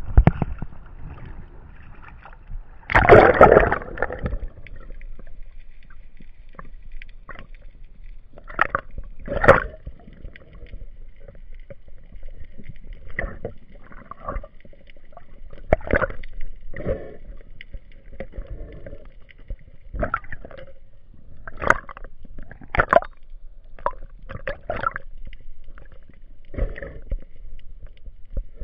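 Sea water sloshing and splashing over a waterproof camera at the surface, with a loud splash about three seconds in, then irregular muffled underwater gurgles and knocks.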